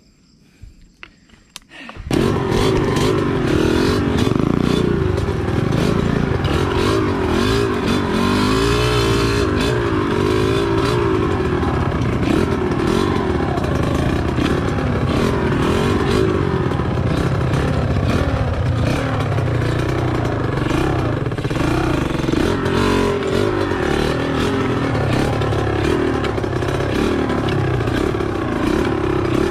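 After about two seconds of near quiet, a homemade mini jeep's motorcycle engine comes in loud and keeps running under load. Its pitch rises and falls as it is revved and eased off, with knocks and rattles throughout.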